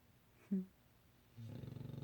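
English bulldog snoring: one short, sharp snore about half a second in, then a longer rattling snore starting near the end.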